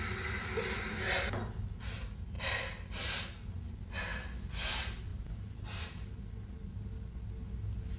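A woman breathing hard in a series of short, sharp gasps, about seven of them roughly a second apart, dying away near the end. This is the breathing of someone who is feeling unwell. A sink tap's running water stops about a second in.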